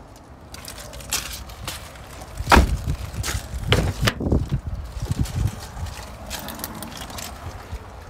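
Footsteps crunching on loose gravel, with the knocks and clunks of a 2004 Nissan Micra's rear door being handled and shut, loudest a few seconds in.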